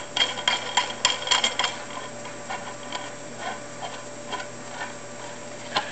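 Threaded metal headset top nut being turned by hand down a scooter's threaded fork steerer: a run of light metallic clicks and ticks, thick in the first couple of seconds, then sparser and fainter.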